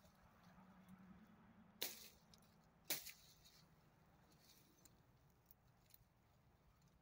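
Two sharp cracks about a second apart: a small green tree branch, already cut into with a knife, being snapped off.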